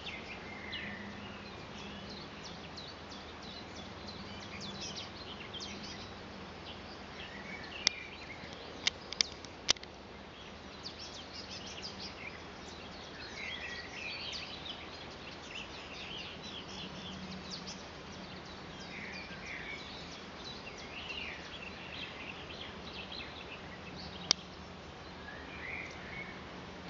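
Small birds chirping and singing on and off over steady background noise, with a few sharp clicks about eight to ten seconds in and one more near the end.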